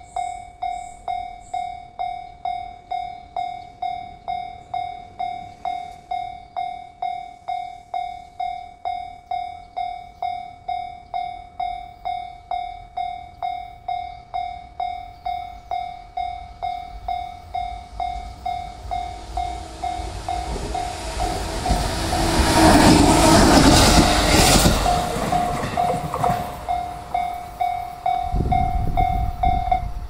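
Japanese railway level-crossing warning bell ringing steadily at about two strikes a second. A short train approaches and runs through the crossing, its passing noise swelling to the loudest point about two-thirds of the way in, then easing. The bell stops just before the end.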